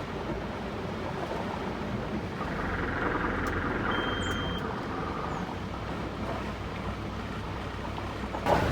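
Sailing yacht's engine running steadily at low speed while manoeuvring in a three-point turn, with a brief high beep about four seconds in.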